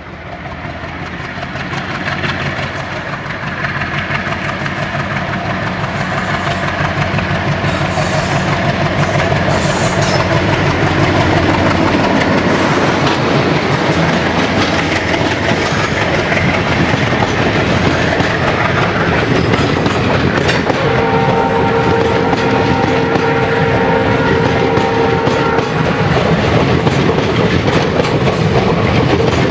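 Indian Railways ALCo diesel locomotive hauling an express passenger train past, its engine growing louder as it approaches, then the coaches' wheels clattering over the rail joints as they go by. A horn sounds for about five seconds past the middle.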